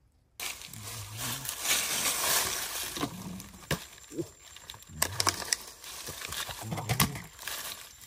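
Dry leaves rustling and scraping, with a few sharp knocks, as someone digs at a burrow under a tree root with a hatchet. Short low-pitched sounds recur about every two seconds.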